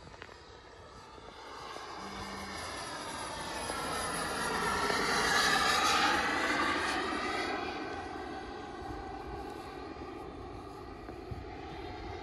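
Ziroli F9F Panther RC model's turbine jet engine flying past overhead. It is a steady turbine rush and whine that grows louder to a peak about halfway through, with the pitch sweeping as it goes by, then fades away.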